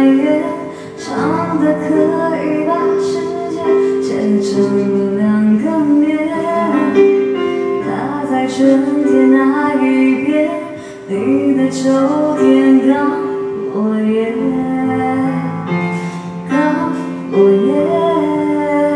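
A woman singing a song into a handheld microphone, over a backing track of held chords.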